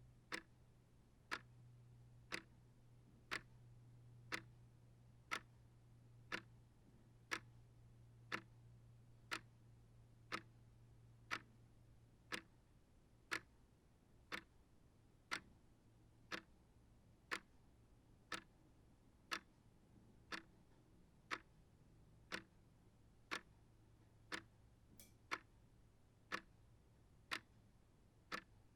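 Small shelf clock ticking steadily, one sharp tick about every second.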